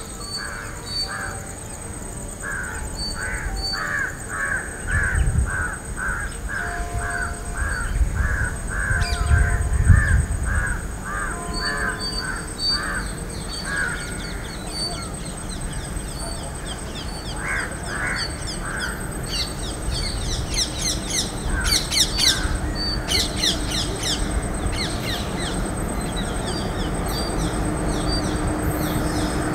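Crows cawing again and again, about two or three calls a second, then more scattered bird calls, over a low rumble from an approaching train hauled by a WAG-5 electric locomotive. The rumble grows steadily toward the end.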